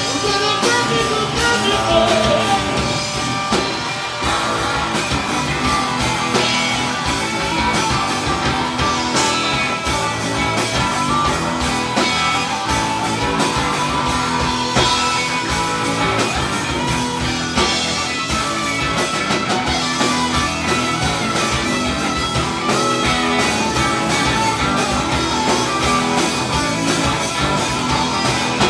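Live rock band playing with two electric guitars, electric bass and a drum kit.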